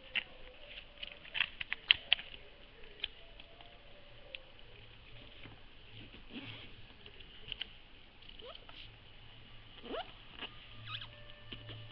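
White paper sheets being folded, creased and smoothed by hand on a table: soft rustling and sliding, with a cluster of sharp crackles and taps about one to two seconds in and scattered crinkles after.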